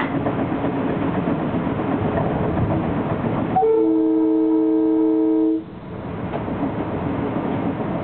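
Metro-North M3 electric train running along the track, heard from on board, with one loud, steady horn blast of about two seconds from a little past the middle, sounded as a warning to track workers. The horn cuts off sharply and the running rumble carries on.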